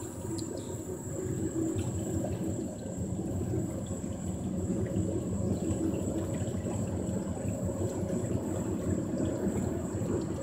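Water swishing and lapping along the hull of a small ElectriCruiser Capone electric boat under way, over a steady low hum and a faint, steady high whine.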